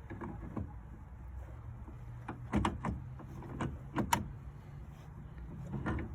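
Scattered clicks and clunks of a metal steering wheel hub adapter being handled and fitted onto the steering column shaft, over a low steady hum.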